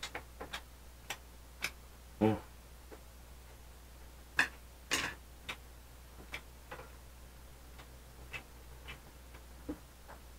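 Quiet eating sounds: irregular soft clicks of a fork against a plate and chewing mouth noises, louder around the middle, with a brief low hum from the eater about two seconds in.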